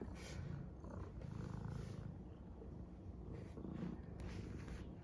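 A pet purring: a steady low rumble, with a few short sharp crackles in the second half.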